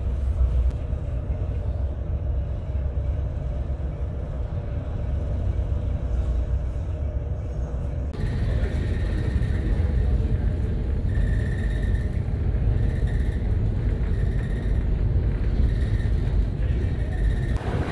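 Storm-force wind on a ferry at sea: a heavy, steady low rumble with no distinct events, its sound changing suddenly about eight seconds in.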